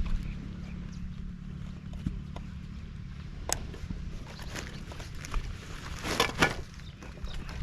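Scattered clicks and rustles of camping gear being handled and packed, loudest about six seconds in, over a steady low rumble.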